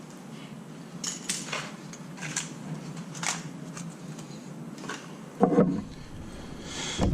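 Metal tools and spark plug parts clinking and knocking: a run of light clinks, then a heavier knock about five and a half seconds in and another near the end.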